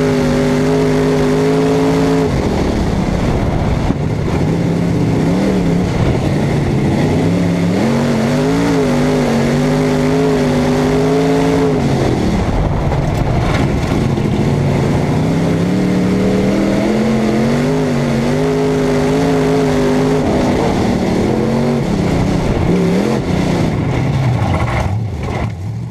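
In-cockpit sound of a dirt-track super stock race car's V8 engine, its pitch climbing and holding as the throttle opens, then falling away as it lifts, several times over. A steady rush of wind and track noise runs under it. Near the end it fades out.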